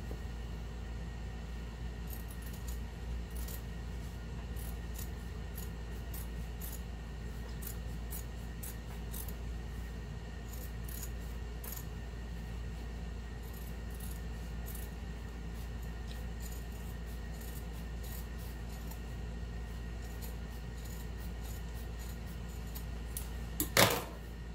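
Scissors snipping again and again as a sewn seam allowance on fabric is trimmed down, over a steady low hum. One loud sharp knock near the end.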